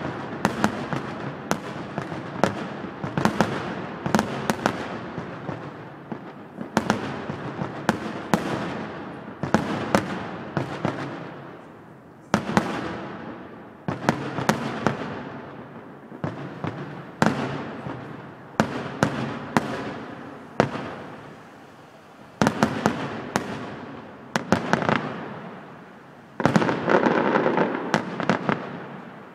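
Fireworks display: aerial shells bursting in quick, irregular succession, each bang trailing off in a rolling echo. A dense stretch of crackling bursts comes near the end.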